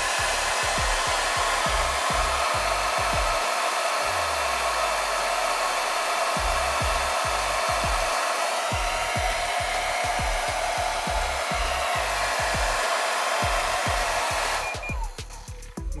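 Xiaomi Mijia Mi Ionic hair dryer (CMJ01LX3) blowing warm air on its first speed: a steady, even rushing of air from the fan, which cuts off about a second before the end. A background music beat thumps underneath.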